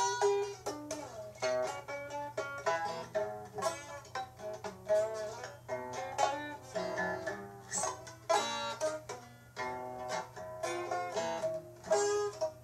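Music: a plucked string instrument playing a quick run of notes.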